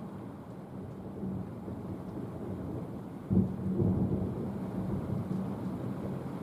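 Thunder: a low rolling rumble, with a sudden louder clap about three seconds in that trails off into continued rumbling.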